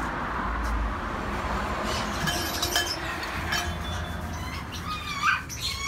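Pet birds in a shop chirping and squawking in short sharp calls over a steady background hum, the calls growing busier about two seconds in.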